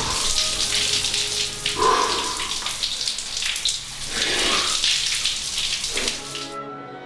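Shower spraying water in a steady hiss, with a man's short cries about two and four and a half seconds in. The water stops shortly before the end and soft music comes in.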